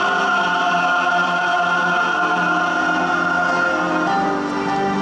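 Large mixed choir of men and women singing a hymn in English in full harmony, holding a long sustained chord that moves to a new chord about four seconds in.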